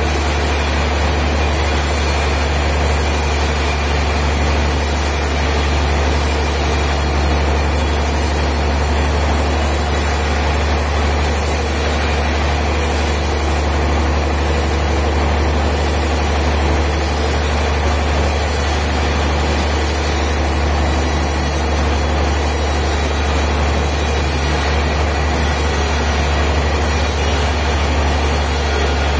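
A heavy engine running steadily at an even speed, with a strong low hum.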